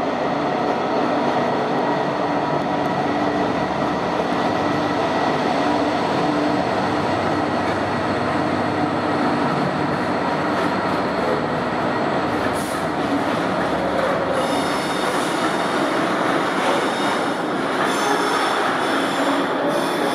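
Class 66 diesel freight locomotive running slowly past with its engine droning, followed by its loaded freight wagons rolling by. The wagon wheels squeal on the curved track from about two-thirds of the way through.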